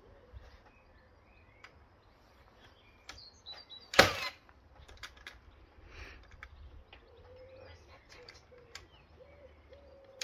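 Faint birds chirping, broken by a short, loud hiss about four seconds in and another at the very end.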